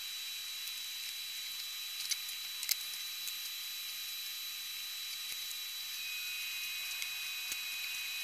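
Steady hiss of a small bench fume extractor fan running during soldering, with a faint high whine. A few light clicks partway through come from handling the circuit board.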